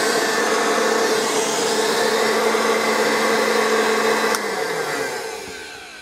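1947 Hoover Dustette model 100 hand vacuum cleaner running steadily, the old motor running nicely. About four seconds in its slide switch clicks off and the motor winds down, its pitch falling as it fades away.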